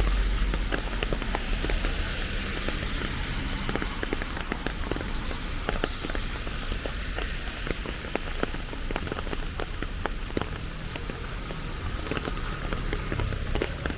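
Steady rain falling, with many sharp, close drop impacts ticking over the hiss and a low rumble underneath, strongest in the first second.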